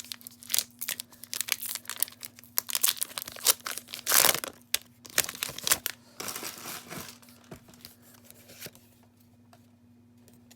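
Foil trading-card booster pack wrapper crinkling and being torn open, with cards handled, dense crackling through the first seven seconds and a loud burst about four seconds in, then quieter.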